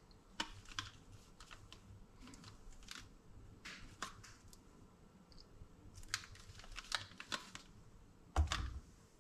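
Handling noise from a taped lithium-ion battery pack: scattered clicks and rustles of the wrap and leads as it is turned over in the hands, then a soft thud near the end as the pack is set down on a digital scale.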